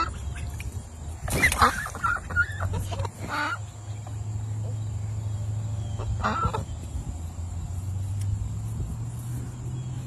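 Duck quacking in short calls: a quick run of several about a second and a half in, one more shortly after, and another around six seconds in.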